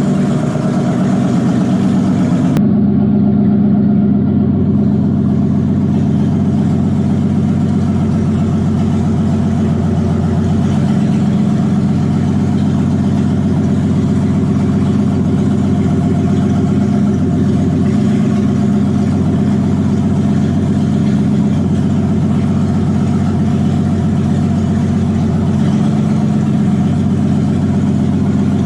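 Engine of a home-built articulated off-road machine running at a steady idle, with a continuous low, even engine note throughout.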